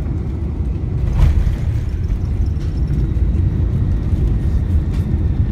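Cabin noise inside a Boeing 747 rolling down the runway after touchdown: a loud, steady low rumble from the engines and the airliner rolling on the runway. A brief knock sounds about a second in.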